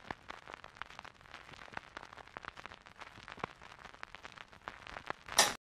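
Faint, irregular crackling: scattered sharp clicks, several a second, over a low hiss, ending in a short, louder rush of noise a little after five seconds in.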